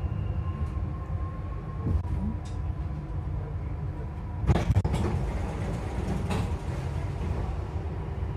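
Steady low hum and rumble inside a Dubai Metro carriage standing at a station, with a faint steady tone above it. A short cluster of knocks comes about four and a half seconds in, and a lighter knock follows near the end.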